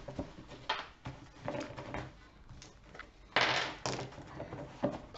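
Playing cards being handled on a table: scattered soft knocks and rustles, with a longer rustle about three and a half seconds in.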